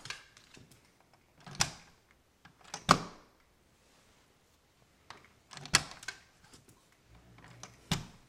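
Cavalier King Charles spaniel jumping over and over, its paws and claws clacking on hard surfaces: four sharp knocks a second or two apart, each with a little clatter around it.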